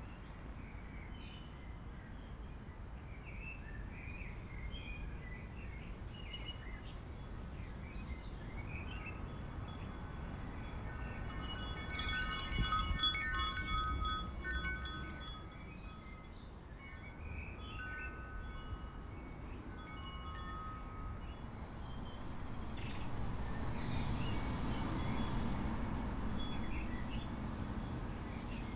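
Metal-tube wind chime ringing, several tones sounding together and strongest about halfway through, with birds chirping throughout. A rushing noise swells near the end.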